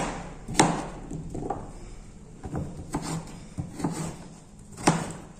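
Kitchen knife cutting chayote on a plastic cutting board: a run of uneven chops, about seven or eight knife strikes, the sharpest about half a second in and near the end.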